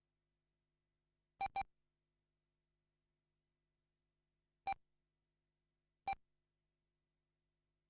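Short electronic beeps from the race timing system: a quick double beep about a second and a half in, then single beeps near five and six seconds. Each beep marks a car crossing the lap-counting line.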